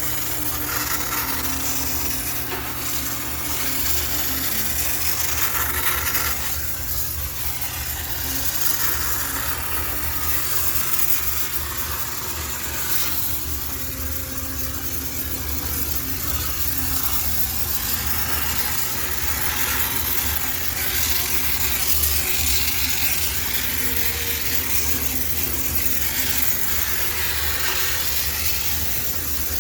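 High-pressure steam cleaner spraying steam into a front-loading washing machine to sterilize it: a steady hiss that swells and eases every few seconds as the nozzle moves, over the low hum of the steam unit.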